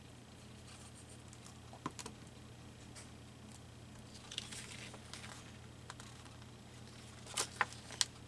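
Paper being handled on a craft table: a cut-out paper piece rustling, with a few sharp clicks and taps, the loudest cluster near the end, over a faint steady room hum.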